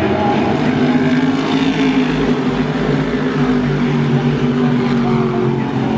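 A pack of modified race cars at speed, their engines a loud, steady drone of many engines together, the pitch drifting up and down a little as the cars pass.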